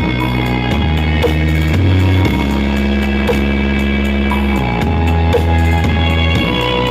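Loud DJ-style music pumped through a large horeg sound system stacked with sixty subwoofers: deep bass notes held for a second or two and changing pitch, over a steady beat.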